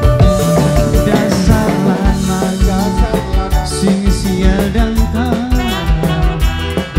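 Live tarling band music played loud over the stage sound system: melody lines over a steady drum beat.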